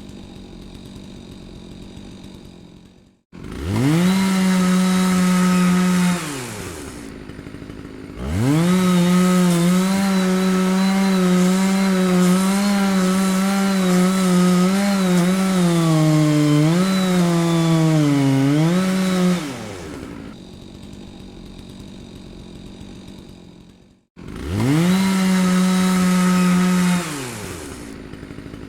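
Chainsaw engine idling, then revved to full throttle several times and dropping back to idle between. During the longest run the pitch wavers and dips, as when the chain bites into wood. It cuts out abruptly twice before revving up again.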